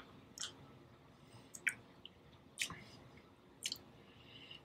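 Faint wet mouth sounds: a few short tongue clicks and lip smacks, about a second apart, as a taster works a sip of whisky around his mouth.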